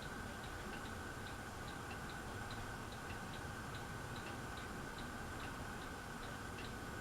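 Harbor Breeze Aristocrat ceiling fan running on medium speed: a steady hum with a light, regular clicking, about two to three clicks a second.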